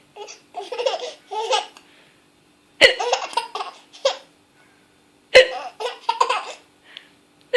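An 8½-month-old baby laughing in short bursts, set off by sharp hiccups. Two hiccups fall about two and a half seconds apart, with a third right at the end, and each is followed by a run of giggling laughter.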